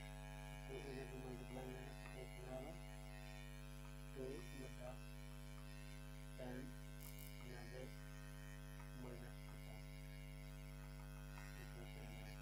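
Steady electrical mains hum, with a few faint short sounds scattered through it.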